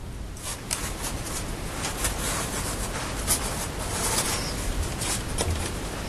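The plastic bottom case of a Lenovo Flex 10 laptop being prised open around its edge: continuous scraping and rubbing of plastic on plastic, with many small clicks as it works loose.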